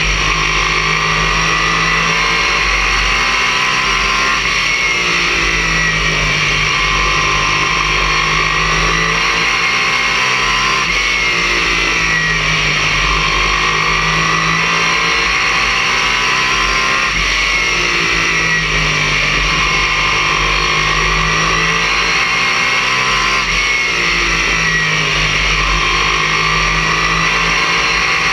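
Race car engine heard from inside the cockpit at racing speed, its pitch rising and falling in a cycle about every six seconds as the car accelerates down the straights and lifts for the turns of the oval, over steady wind and road noise.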